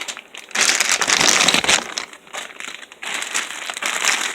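Plastic packaging or a plastic bag crinkling and crumpling as it is handled, in a long loud burst followed by a shorter stretch of rustling near the end.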